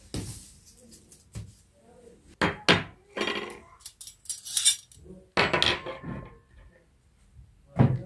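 A table being laid: woven straw placemats set down and stainless steel spoons and forks placed on a wooden tabletop, making several separate knocks and metal clinks.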